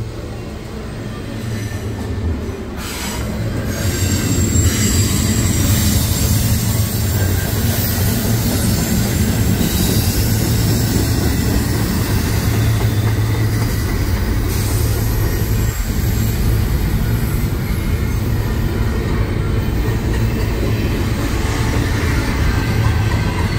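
Norfolk Southern double-stack intermodal freight train passing close by: the steady rumble and rattle of container well cars rolling over the rails. It grows louder over the first few seconds as the listener comes out of the caboose into the open, then holds steady.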